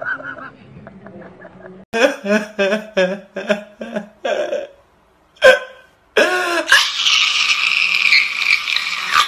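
A man crying loudly: a run of short sobbing cries from about two seconds in, a single sharp cry, then a long drawn-out wail near the end.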